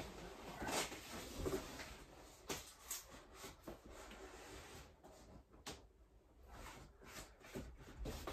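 Faint rustling with scattered light taps and clicks, the irregular noise of hands handling material at close range.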